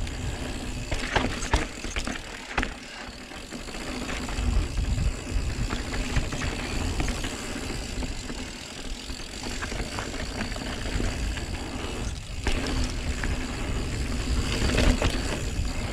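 Santa Cruz Megatower mountain bike descending a packed-dirt trail: tyres rolling over dirt and small stones, with scattered clicks and rattles from the bike over bumps. Wind buffets the microphone underneath, dropping away briefly about twelve seconds in.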